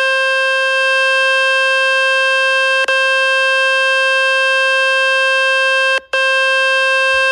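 Loud, steady buzzing tone from the 'Fix My Speaker' website, played on a phone to shake water, dust and dirt out of its loudspeaker. The tone holds one pitch, cuts out briefly about six seconds in, then carries on.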